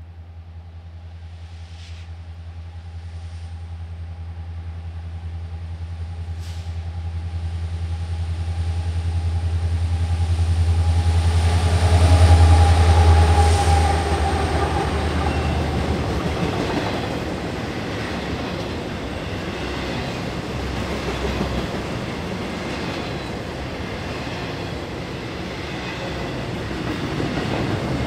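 Diesel freight locomotive's engine hum growing steadily louder as it approaches, loudest about twelve seconds in as it passes. After that come the steady rumble and clickety-clack of double-stack container cars rolling by.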